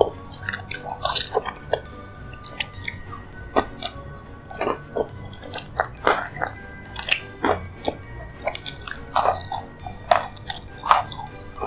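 Close-miked chewing, biting and wet mouth smacks of someone eating a dessert, in irregular bursts. Soft background music plays underneath.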